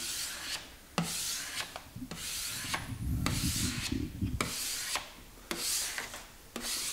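Hand squeegee dragged over wet frosted window film on glass in about six short rubbing strokes, pressing the water out from between film and pane.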